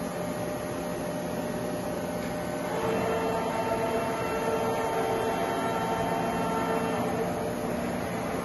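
Doosan VCF-850LRS II five-axis machining center running with a steady machine hum. A whine of several steady tones comes in about three seconds in and stops about seven seconds in, while the spindle head travels across the machine.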